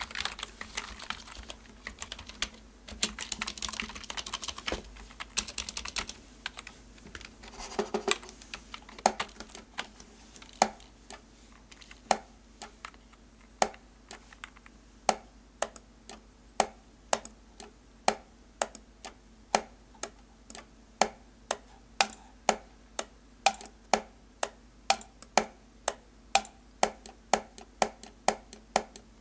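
Computer keyboards and mice played as percussion: a fast flurry of typing, then about eight seconds in the keystrokes and clicks settle into an even rhythm of about two a second that grows busier toward the end.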